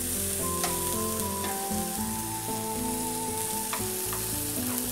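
Oil sizzling in a frying pan, a steady hiss, while pan-fried potato slices are set on a plate with tongs, giving a few light clicks. Soft background music runs underneath.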